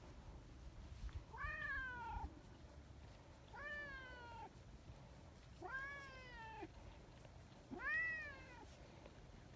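A cat meowing four times, about two seconds apart, each meow a drawn-out call that rises and then falls in pitch; the last one is the loudest.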